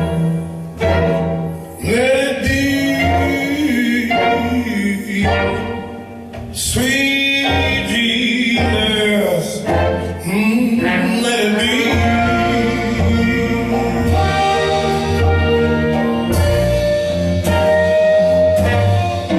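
Blues band music with a singing voice over the instruments; from about halfway on, the band holds longer, steadier notes over a sustained bass.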